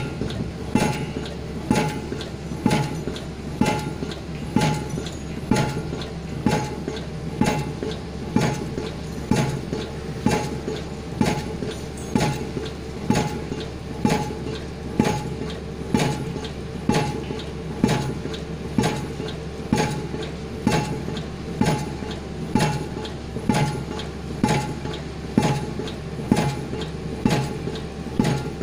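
Pile-driving rig's hammer driving a concrete pile, striking in a steady rhythm of about one heavy blow a second, each blow with a short metallic ring, over a steady low hum.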